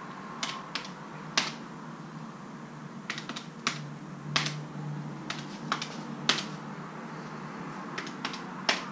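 Calculator buttons pressed one after another, a string of sharp plastic clicks in irregular bursts.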